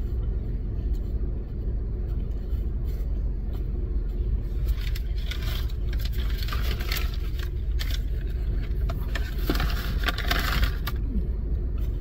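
Steady low rumble of a car idling, heard inside the cabin, with bursts of rustling and crackling from about five seconds in until near eleven seconds.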